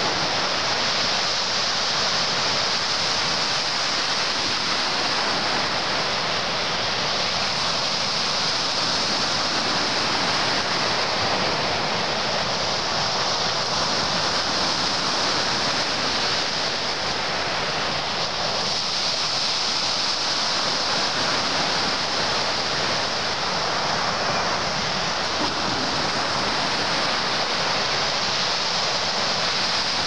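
Sea surf breaking and washing up a pebble beach, a steady, unbroken rush of water.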